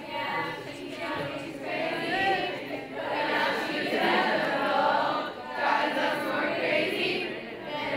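A congregation of schoolchildren singing a Hebrew prayer together, many voices in unison without instruments.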